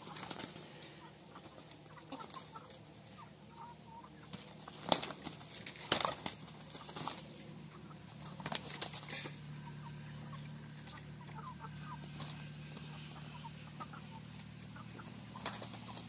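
Chickens clucking softly, broken by several sudden scuffles and bursts of wing-flapping as roosters spar. The loudest come about five and six seconds in.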